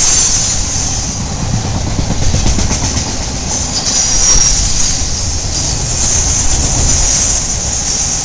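Intermodal freight train's trailer-laden flatcars rolling past close by: steady, loud noise of steel wheels on rail. A brief high wheel squeal on the curve comes about four seconds in.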